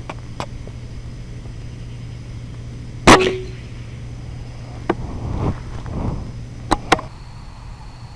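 A single sharp shot from a .22 Benjamin Discovery PCP air rifle about three seconds in, by far the loudest sound, with a brief ring after it. A steady low hum runs underneath, and a few softer clicks and thuds follow in the next few seconds.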